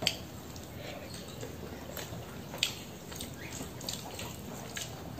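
Eating by hand: chewing a mouthful of rice and curry, and fingers mixing rice on a steel plate, with soft wet sounds and a few light sharp clicks.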